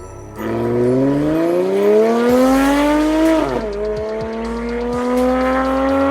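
Lotus Evora S 3.5-litre V6 with a titanium exhaust accelerating hard. The revs climb for about three seconds, drop sharply at a gear change, then climb again more slowly.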